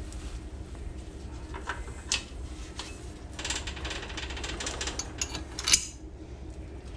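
Scattered light metallic clicks, then a longer rattling run of clicks in the middle ending in a sharp click, from a greased roller drive chain being handled.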